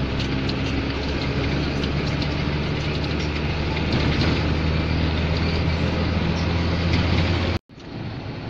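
GAZelle van motorhome on the move, heard from inside the cab: a steady low engine drone over road noise. Near the end it cuts out for an instant and comes back as quieter road noise.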